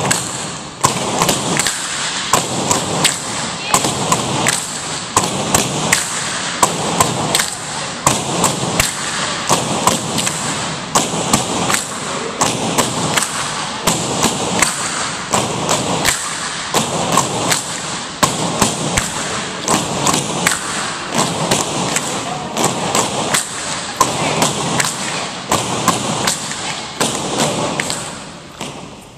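Tinikling poles knocked against a wooden gym floor and clapped together by several groups at once, making a fast, dense, overlapping run of sharp knocks. It stops shortly before the end.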